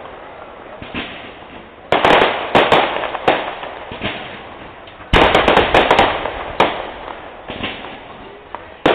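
Fireworks going off: a small pop, then two volleys about 2 and 5 seconds in, each a sudden bang followed by a quick run of pops that fades over a second or two, and another volley starting right at the end.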